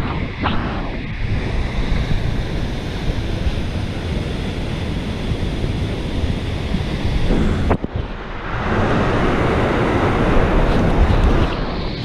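Steady rushing of a waterfall and its pool, picked up by a camera held at the water's surface. The noise cuts out briefly about eight seconds in and comes back fuller.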